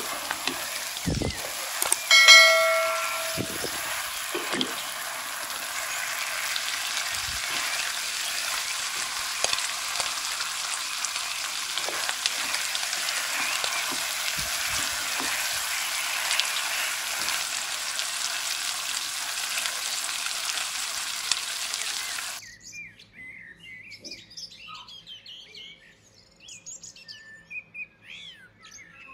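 Chicken, capsicum and onion sizzling as they fry in oil in a nonstick pan, stirred with a wooden spatula that gives occasional soft knocks; a short ringing tone sounds about two seconds in. About 22 seconds in the sizzle cuts off and birds chirp.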